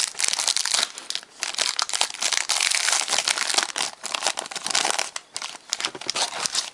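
A foil trading-card pack wrapper crinkling and tearing as it is handled and opened, a dense run of quick crackles.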